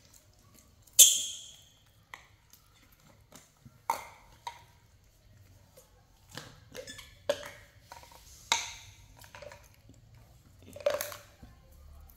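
Plastic baby bottles and their caps being handled and set down on a tile floor: a series of scattered clicks and knocks, the sharpest about a second in with a short ring.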